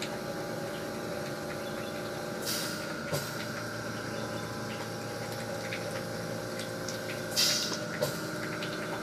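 Steady mechanical room hum with faint whining tones. A short soft hiss comes twice, about two and a half seconds in and again near the end, with a few light clicks.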